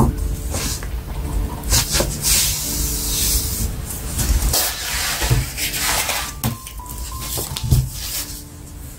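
A pen scratching across paper in a series of strokes as a curve is drawn, over soft background music. A sharp tap near the end as a plastic pattern ruler is laid down on the paper.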